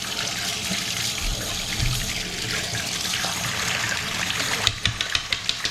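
Kitchen faucet running a steady stream of water into the sink. Near the end comes a quick run of light clicks or taps.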